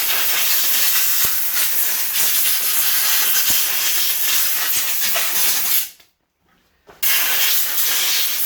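Compressed-air blow gun blasting dust and debris out of an opened robotic lawn mower. It is a loud, steady hiss that stops abruptly about six seconds in, then starts again about a second later.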